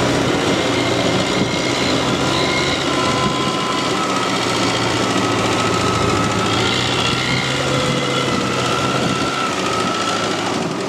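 Kubota rice combine harvester running under load: a steady engine hum, with a clatter of machinery and high, wavering squeals over it.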